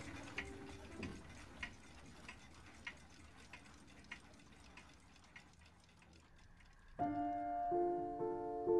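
Mechanical clock ticking evenly, about three ticks every two seconds, fading toward the middle. Soft piano music comes in about seven seconds in.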